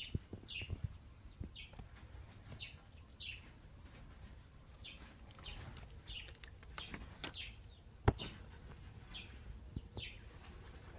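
A bird chirping over and over: short, high, falling chirps about once a second. Scattered sharp taps and one louder knock about eight seconds in.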